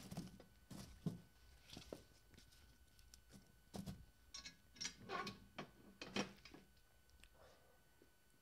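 Pieces of firewood being loaded into a wood stove's firebox over hot coals: a series of light knocks and clatters of wood against wood and the metal stove, dying away after about six seconds.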